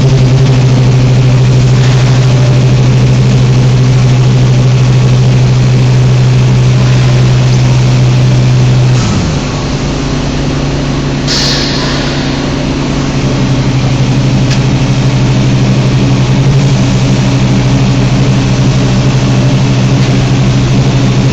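Industrial machinery running with a loud, steady hum. About nine seconds in the hum briefly drops in pitch and becomes a little quieter. About two seconds later there is a short hiss, like a burst of air being released.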